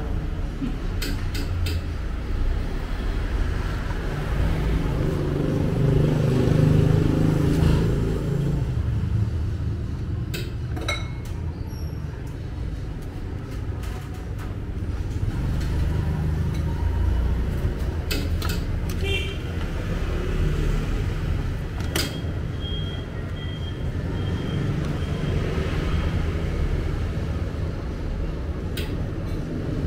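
Steady street traffic rumble, with scattered clinks and knocks of utensils and bowls on a steel food-stall counter. A few short high beeps come about two-thirds of the way through.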